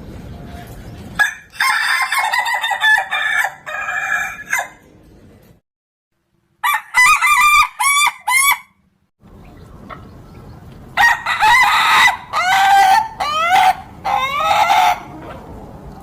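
Ayam ketawa (laughing chicken) roosters crowing three times. Each crow is a long run of quick, choppy notes, like a stuttering laugh.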